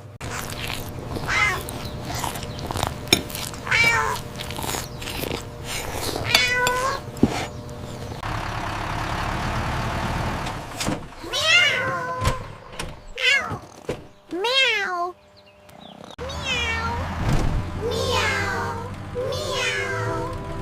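A cat meowing again and again, a dozen or so wavering, falling meows, several overlapping near the end, over a low steady hum, with a steady hiss in the middle.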